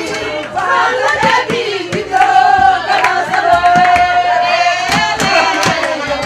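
A woman singing, holding one long note about halfway through, over rhythmic hand clapping.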